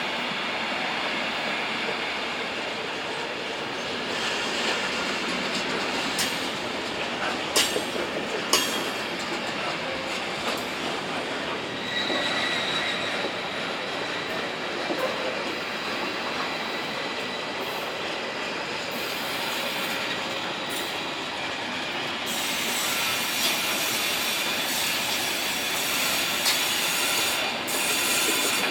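Train rolling past on the tracks, a steady rolling rumble with sharp clicks from the wheels over the rail about seven to nine seconds in, and a short high-pitched wheel squeal about twelve seconds in.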